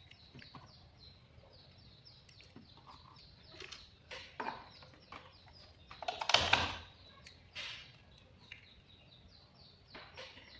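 Light knocks and a sharp clatter from handling objects, loudest about six seconds in, over a steady background of short high chirps repeating about four times a second.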